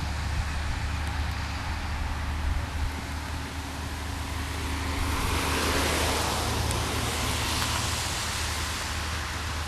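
Road traffic noise over a steady low engine hum, with a vehicle passing: its tyre hiss swells about halfway through and fades a few seconds later.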